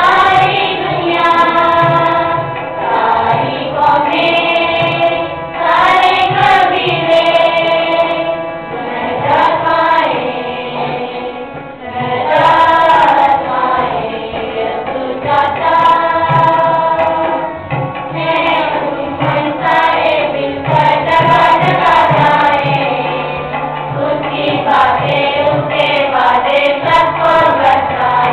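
A group of girls singing a Christian action song together in Urdu.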